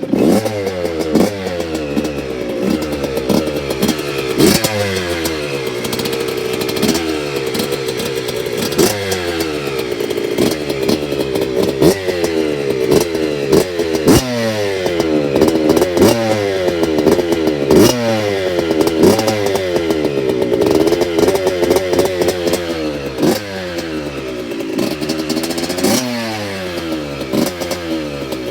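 Yamaha YZ65 65cc two-stroke single, fitted with an FMF Gold Series Fatty pipe and TurbineCore 2 silencer, catching at the start and then being blipped over and over. The pitch rises sharply and falls back every second or two.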